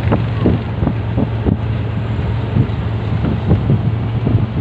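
Wind buffeting the phone microphone in irregular gusts over the steady low hum of a moving vehicle's engine.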